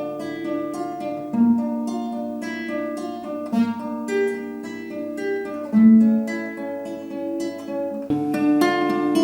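Guitar fingerpicked in a repeating arpeggio: the thumb plucks a low note on the fourth string, then the fingers pick the third, second, third, first, third, second and third strings. A new low note comes about every two seconds, and the chord changes near the end.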